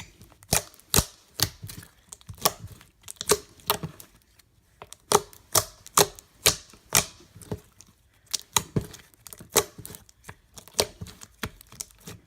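Hands squeezing, folding and pressing glitter slime, giving an irregular run of sharp wet clicks and pops, several a second, with a couple of brief pauses.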